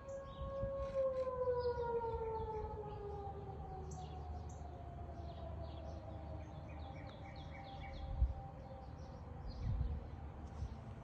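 Outdoor tornado warning siren holding a steady tone, then winding down from about a second in, its pitch sliding slowly lower and fading as it shuts off at the end of the drill sounding. Songbirds chirp throughout.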